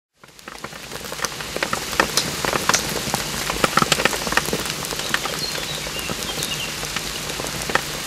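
Rain falling on a pond's surface: a steady patter with many sharp individual drips, fading in over the first second.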